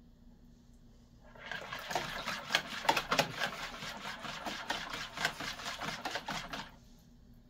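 Wire whisk beating broth into an egg-and-yogurt mixture in a plastic bowl, a rapid run of clicking, scraping strokes as hot broth is ladled in. It starts about a second and a half in and stops near the end. This is the egg being tempered slowly so that it does not curdle.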